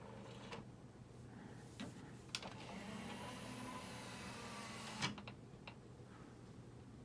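Denon DCM-360 five-disc CD changer's tray mechanism: a few light clicks, then its small motor whirring for about two and a half seconds and stopping with a click, followed by a couple of soft clicks.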